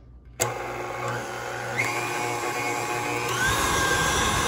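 KitchenAid Classic stand mixer switched on about half a second in, its motor whining as the wire whip beats creamed cookie dough in a stainless steel bowl. The whine steps up in pitch twice as the speed is raised.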